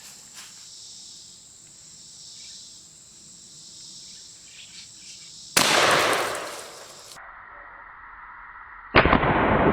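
A single shot from a New England Firearms Pardner 20 gauge single-barrel shotgun, about halfway through, a sudden loud blast that dies away over a second or so. Insects chirr before it, and a loud steady rushing noise starts near the end.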